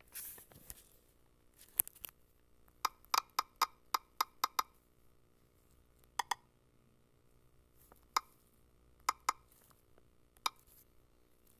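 Short, sharp clicks in irregular runs: a quick burst of about eight, then scattered single and paired clicks.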